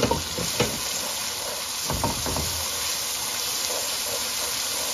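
Spiced tomato masala sizzling in hot oil in a metal wok while a wooden spoon stirs and scrapes through it, with a few sharper knocks of the spoon in the first second. This is the bhuna stage, frying the masala until the oil separates.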